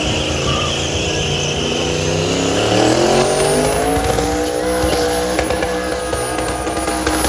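Twin-turbo LS V8 in a Silverado pickup doing a burnout. The engine revs up from about two seconds in and holds high revs, over tire squeal.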